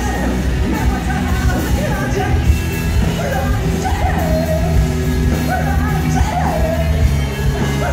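Live rock band playing on stage, a male singer's voice carrying the melody over the band, amplified through the PA and heard from within the crowd in a large hall.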